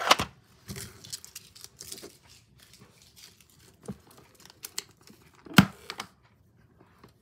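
Hands handling small plastic-packaged items on a desk: crinkling and rustling with light taps and clicks, busiest at the start, and one sharper knock about five and a half seconds in.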